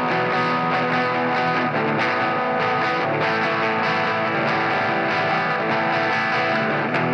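Rock band music: distorted electric guitar over bass and drums, with a steady beat.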